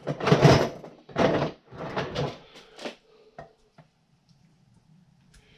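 Kitchen handling noise during rib prep: a quick run of rustling, scraping bursts that stops about three seconds in, then two light clicks and a faint low hum.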